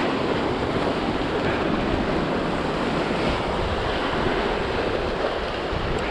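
Sea surf surging and breaking over a rocky shoreline, a steady rushing wash, with wind buffeting the microphone.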